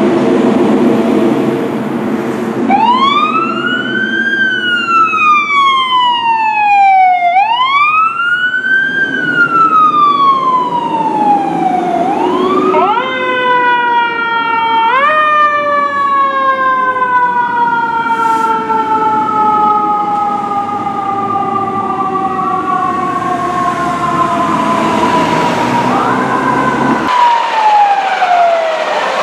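Fire truck's diesel engine running, then its siren wails in slow sweeps, each rising quickly and falling off gradually. About halfway through, a second, higher siren tone cuts in and the wail winds down in one long falling glide. Near the end a fire truck's siren sounds again, falling in pitch.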